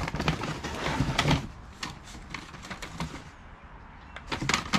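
Hardcover books and cardboard knocking and scraping as they are pulled and shifted in a box: a quick run of sharp clicks and thumps for the first two seconds, quieter in the middle, and a few more knocks near the end.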